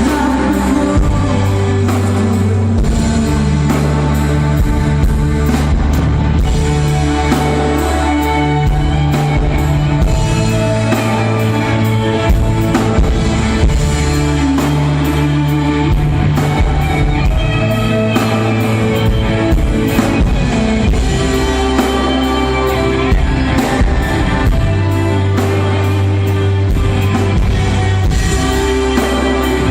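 Rock band playing live: electric guitar and bass over a drum kit keeping a steady beat, with low notes that change every couple of seconds.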